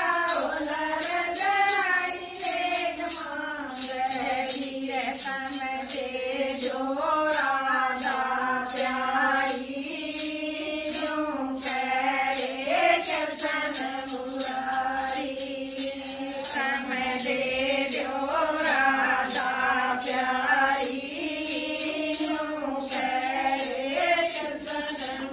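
A group of women singing a Hindi jachcha-baccha folk song together, the song for a new mother and baby, with small hand-held percussion keeping a steady, even beat under the voices.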